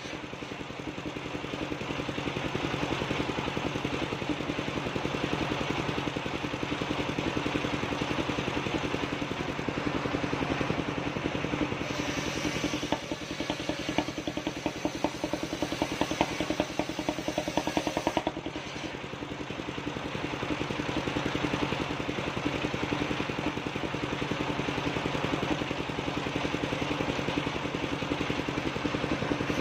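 Engine-driven mobile circular sawmill running steadily while its large blade rips lengthwise through a coconut palm log, with a fast rattle from the machine. The cutting noise grows brighter and louder for several seconds near the middle.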